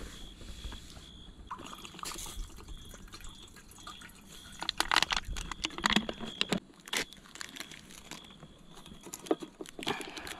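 Metal camp cookware and a plastic water bottle being handled: scattered clinks and knocks, most of them a few seconds in and again near the end, with water sloshing.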